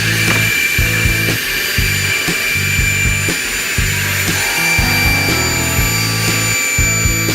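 Background music with a steady beat over the steady high whine and hiss of an automatic circular saw machine running.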